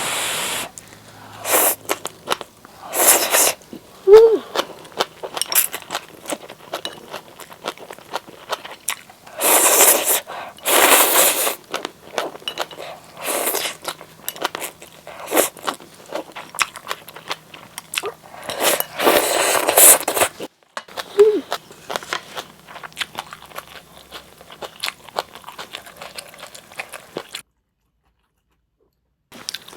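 Close-up eating sounds of a person eating spicy Buldak seaweed-soup ramen with half-boiled eggs: wet chewing and many small clicks of mouth and utensils. Louder noisy bursts come now and then, the strongest about 10 to 11 and 19 to 20 seconds in.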